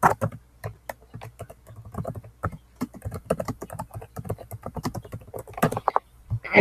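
Typing on a Chromebook keyboard: a quick, irregular run of key clicks as a search query is entered, with a louder cluster of keystrokes near the end.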